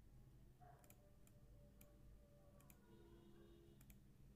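A handful of faint computer mouse clicks, some in quick pairs, against near silence.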